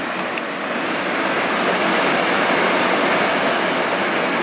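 Steady rushing noise of a running shop fan, even and unchanging, with a faint low hum beneath it.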